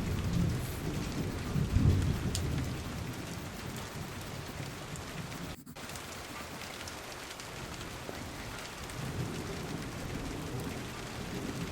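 Steady rain with low rumbles of thunder swelling near the start and again toward the end; the sound cuts out for an instant about halfway.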